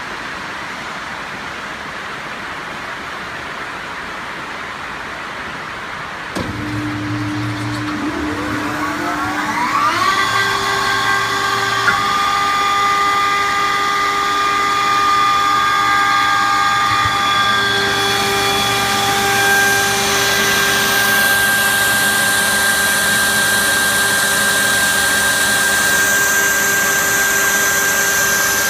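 30 kW screw air compressor starting up: a steady hiss, then about six seconds in a sudden start and a whine rising in pitch for about four seconds as the motor spins up, settling into a steady whine of several tones. From about eighteen seconds in, a higher hiss joins the whine.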